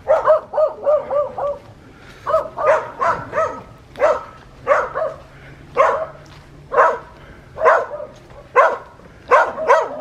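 Dog barking at a passer-by: a quick run of short barks at first, then single barks about once a second.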